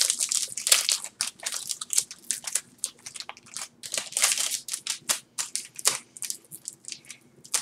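Foil trading-card booster pack wrapper crinkling and tearing as it is twisted and ripped open by hand: a dense, irregular run of quick crackles.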